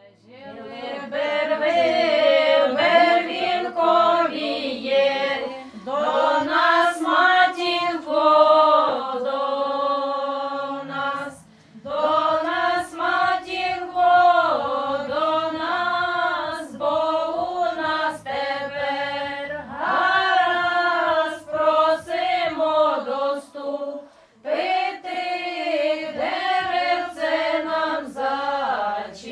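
A group of women singing a traditional Ukrainian wedding song unaccompanied, several voices together, in long drawn-out phrases with short pauses for breath between them.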